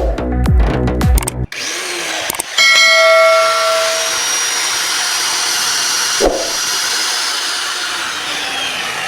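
Electronic background music with a beat for about a second and a half, then it gives way to a handheld electric cutter machine running at full speed: a steady, hissing whir, with a brief ringing whine shortly after it starts and a single click about halfway through.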